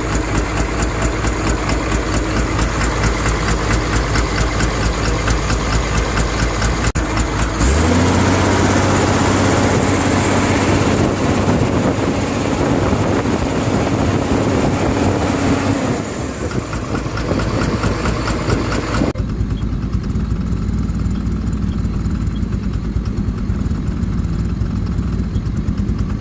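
Komatsu excavator diesel engine running with the abnormal noise being troubleshot: a rhythmic pulsing idle, then about eight seconds in it is raised to a higher, steadier speed, and it drops back after about eight more seconds, sounding duller near the end.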